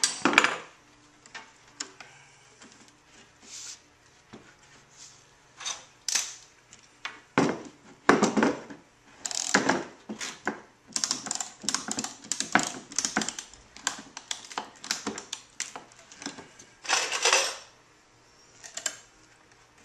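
Steel strapping being banded around a wooden crate: the metal band rattles and scrapes against the board, and a hand strapping tensioner is worked with runs of quick clicking strokes, the densest in the second half.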